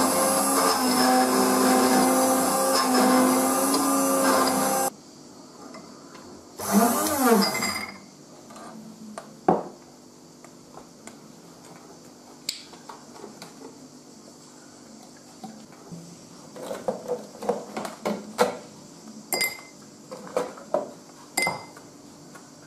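Electric frappé drink mixer whisking coffee in a glass, a steady high-speed whir that cuts off suddenly about five seconds in. A brief loud whir rising and falling in pitch follows a couple of seconds later, then scattered light knocks and clinks of glassware, with ice cubes dropped into the glass near the end.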